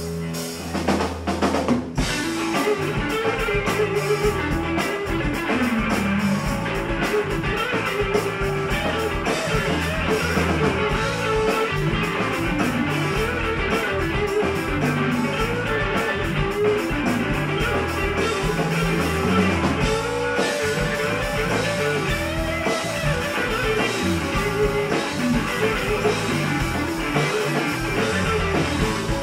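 Live rock band playing: electric guitars and bass over a drum kit. A held chord opens, and the drums come in at full pace about two seconds in.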